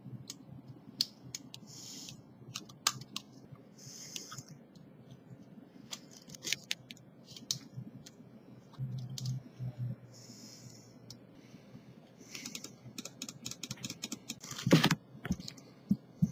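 Metal dental scaler clicking and scraping irregularly against teeth as it debrides around a molar, with short hissy breaths every couple of seconds and one louder knock near the end.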